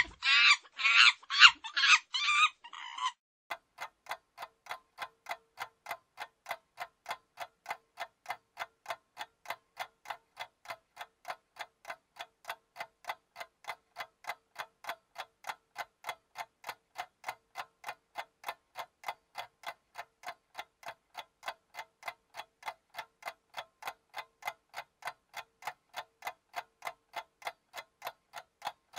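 A loud, high-pitched call repeating rapidly for about the first three seconds, then a clock ticking steadily, a little over two ticks a second.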